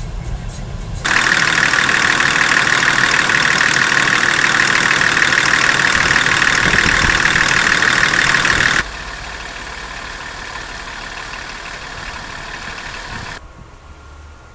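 Turbodiesel engine of a Vauxhall Omega Elite TD (BMW M51) running. About a second in it turns suddenly much louder with a strong high hiss, then drops back abruptly to a quieter steady run after about eight seconds.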